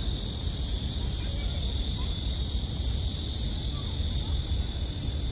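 A steady high-pitched chorus of insects droning without a break, over a constant low rumble.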